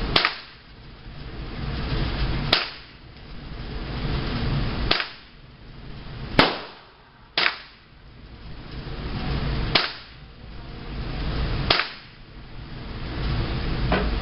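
Seven single gunshots at uneven intervals, roughly two seconds apart with one pair about a second apart, each a sharp crack followed by a short ring.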